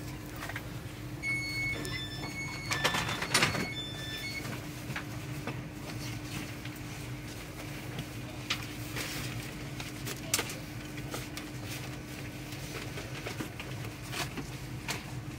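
Inside a passenger train carriage as it runs slowly into a station: a steady low hum from the train with a constant tone in it, and scattered light clicks. About one to four seconds in, a short run of high electronic beeps sounds along with a brief hiss.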